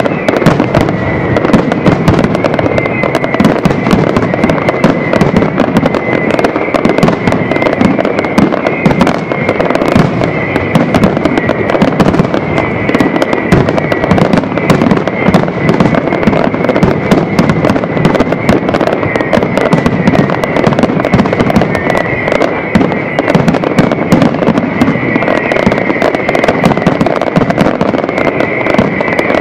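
Fireworks finale: a dense, unbroken barrage of aerial shell bursts and crackling bangs. A steady high tone runs underneath.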